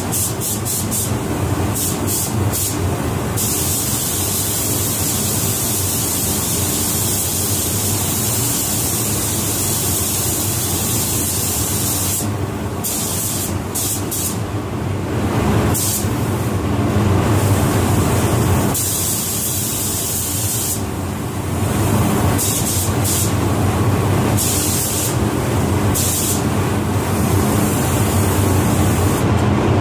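Spray gun hissing as it lays clearcoat on at high air pressure, the hiss cutting out for a second or two several times as the trigger is released and pulled again, over a steady low hum.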